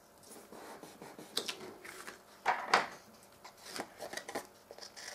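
Paper and cardstock being handled and rustled on a cutting mat, with a few sharp taps and two louder clatters about two and a half seconds in. Then small scissors snip through the cardstock, trimming off the excess paper strips.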